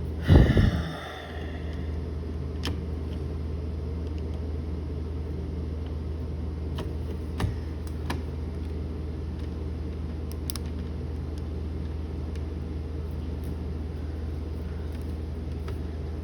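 Steady low background hum, with a thump about half a second in and a few faint, sharp clicks of a small screwdriver working a switch-plate screw.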